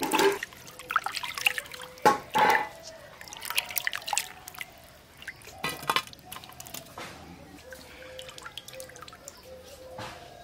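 Water sloshing, splashing and dripping as hands wash cut pieces of rohu fish in a metal bowl. It comes in irregular bursts, loudest about two seconds in.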